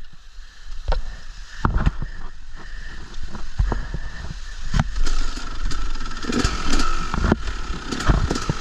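Motorcycle engine running, with scattered knocks and clunks as the bike is worked over rocks at a creek crossing.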